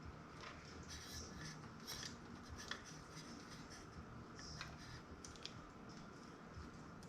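Faint handling noises: scattered light clicks and rustles as small parts are handled, over a low steady hum.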